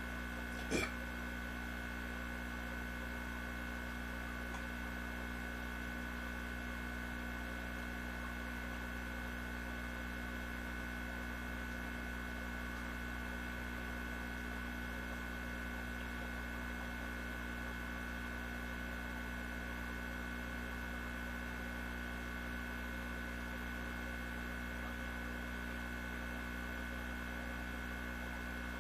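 Steady electrical hum made of several fixed tones, with one brief short sound about a second in.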